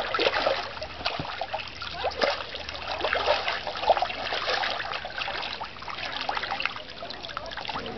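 Water splashing and trickling around a coracle afloat on its first float test, in many small irregular splashes with a few louder ones.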